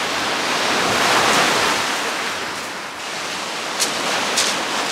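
Waves breaking and washing up a shingle beach: a loud rush that swells about a second in and then eases. Two short crunches near the end.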